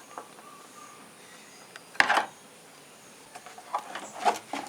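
Handling noise as a washing machine's controller circuit board is unscrewed and freed: one sharp knock about two seconds in, then a cluster of lighter clicks and taps near the end.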